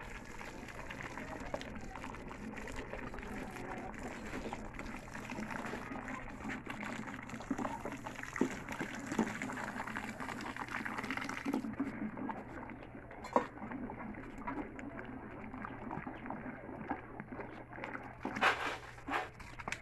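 Blood pouring in a stream into a wok of boiling offal broth while a metal ladle stirs it, the broth bubbling. A few sharp knocks stand out near the end.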